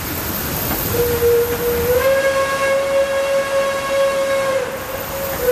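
Steam locomotive whistle blowing a long blast that starts slightly lower in pitch and rises as it opens fully, over a low rumble. Near the end the pitch sags and a second blast begins.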